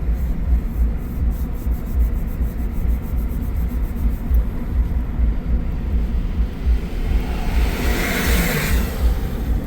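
Road and engine rumble inside a moving vehicle's cabin on a climbing highway, steady and low. A rushing hiss swells and fades about eight seconds in.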